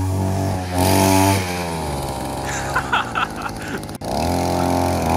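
Small 50cc two-stroke engine of a mini dirt bike being ridden, revving up sharply about a second in, easing off, then revving up again near the end.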